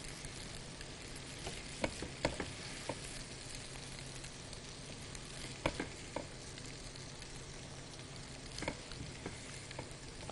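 A spoon clinking and scraping against a cooking pot as biryani filling of fried onion, vegetables and spices is added onto the rice. A handful of sharp clinks comes over a steady faint sizzle.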